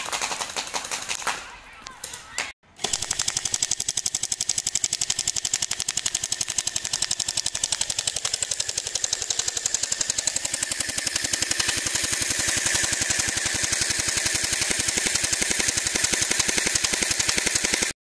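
Jinming SCAR V2 battery-powered gel blaster firing on full auto: a fast, even rattle of shots that starts nearly three seconds in, runs for about fifteen seconds and cuts off suddenly. Before it come a few scattered clicks.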